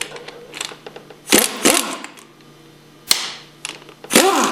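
Hand tools working metal pump parts while the plungers are removed: sharp metal clicks and clanks with brief squeaks, the loudest a pair of clatters about a second and a half in, a single sharp knock about three seconds in, and another clatter near the end.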